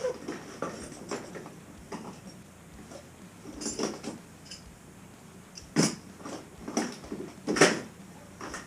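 Scattered clinks and knocks of hand tools being handled, with two louder knocks in the second half.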